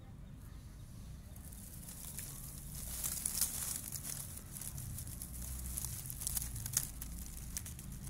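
Dry grass of the nest rustling and crackling as it is handled close to the microphone. The crackles are scattered and sharp, and they come thicker from about three seconds in.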